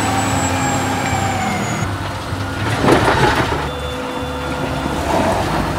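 Caterpillar wheel loader's diesel engine running under load while it tips a bucket of earth into a trailer, with a loud rush of falling soil about three seconds in.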